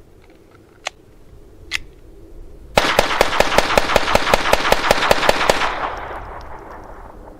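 Two sharp clicks, then a Kel-Tec P17 .22 LR semi-automatic pistol fired in a rapid string of about seven shots a second for roughly three seconds, the report trailing off in an echo.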